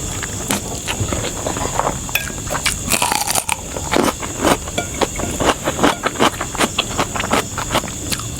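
Close-miked eating: chewing and crunching with sharp mouth clicks, the chews coming in a quicker, more regular run in the second half.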